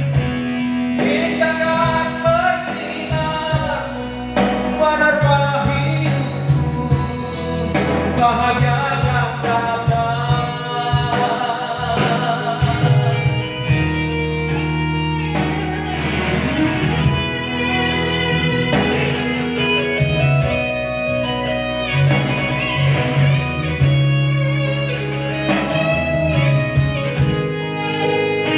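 Music: a song with a guitar playing melodic lines of wavering, bent notes over a steady bass.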